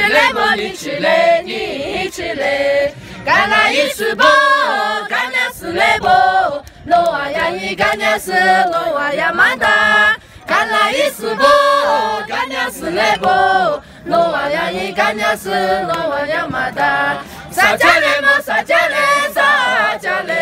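A group of women and men singing a traditional Lijiang folk song together without accompaniment. The melody wavers up and down, with short breaks between phrases.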